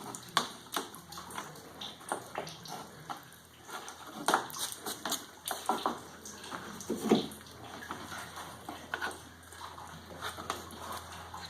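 Wet paper-and-sawdust pulp being scooped and handled, sloshing and slapping, with scattered irregular knocks.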